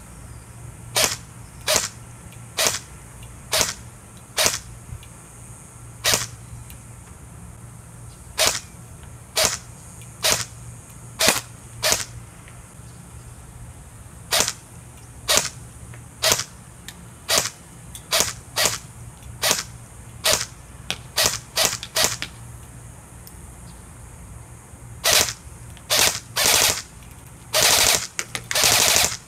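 Ares Amoeba AM-013 Honey Badger airsoft electric rifle firing on semi-auto: sharp single shots, one to three a second with short pauses between strings. Near the end it fires a few longer bursts.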